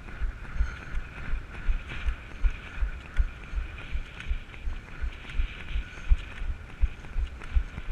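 Running footfalls thudding at a steady pace of nearly three a second, with wind on the microphone.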